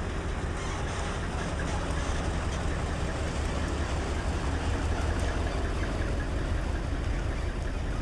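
Large truck's diesel engine running steadily with a low rumble, swelling slightly midway.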